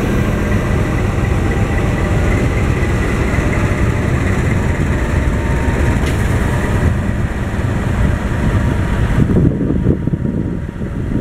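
Train of fuel tank wagons hauled by a diesel locomotive, moving past at close range: a loud, steady rumble. About nine seconds in the hiss drops away and a lower, pulsing rumble takes over as the locomotive comes alongside.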